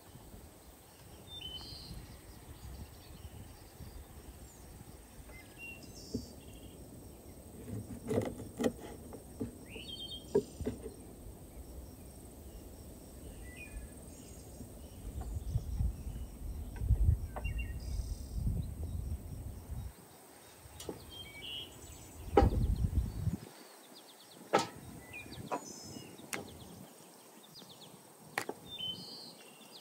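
Wind rumbling on the microphone in gusts, dropping away about two-thirds through, with a few sharp knocks of a kitchen knife cutting raw chicken on a wooden cutting board. Birds chirp here and there.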